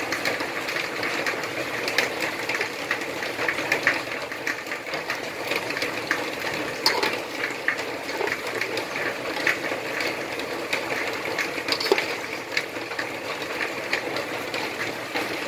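Green curry paste frying in split coconut cream in a stainless steel pot: a steady sizzle with frequent clicks and scrapes of a metal spoon stirring against the pot.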